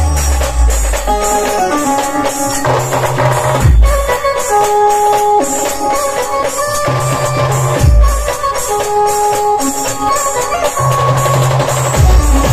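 Loud band music played through a truck-mounted speaker rig: a melody of long held notes over a bass line, with tambourine-like percussion and deep bass hits about every four seconds.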